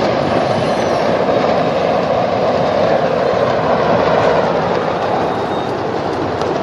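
Steady, loud, rushing roar of a large explosion fire at a fireworks factory, with no separate blasts standing out.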